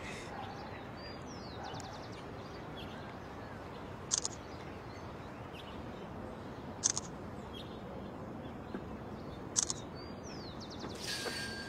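Steady outdoor background hiss with a couple of faint bird chirps, and three short clicks about two and a half seconds apart: a phone camera's shutter sound as photos are taken.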